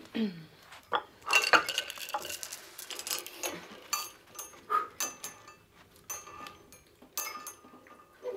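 Steel chain rattling and clinking against a stack of iron weight plates as it is handled and hooked up: a series of sharp metallic clinks, several with a brief high ring.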